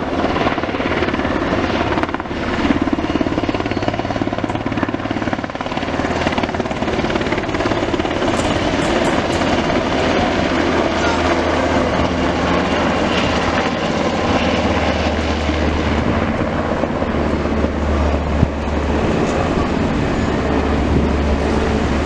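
Black Hawk-type firefighting helicopter flying past low overhead, its turbine and rotor running steadily. The low rotor beat grows stronger in the second half.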